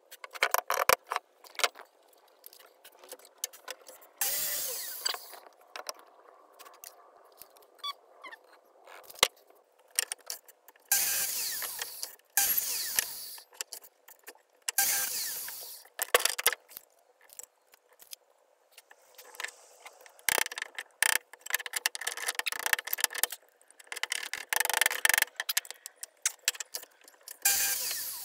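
Short pieces of wood being cut and handled: about seven brief, hissing saw cuts of around a second each, with sharp knocks and clatter of timber being set down and moved between them.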